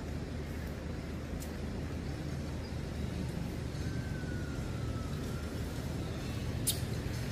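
Steady low outdoor background rumble, with a faint falling whistle about four seconds in and a sharp click near the end.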